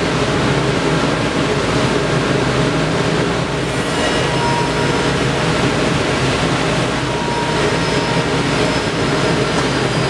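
Workshop machinery running: a steady rushing noise with a low hum underneath, unchanging throughout.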